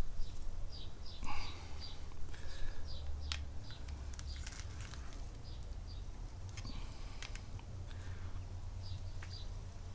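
Pliers working a small metal part from a car door, in scattered light clicks and scrapes over a low steady hum, with a few faint short high chirps.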